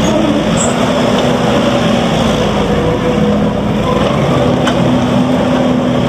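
Kubota SVL75-2 compact track loader's four-cylinder turbo diesel running steadily as the machine drives and turns on a dirt lot, with track and ground noise under the engine note.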